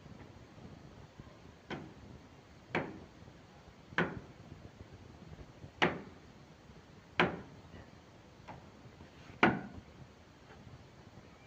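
Hammer blows on concrete during manual demolition: six heavy knocks at an uneven pace, a second or two apart, each ringing briefly, with two faint ones near the end.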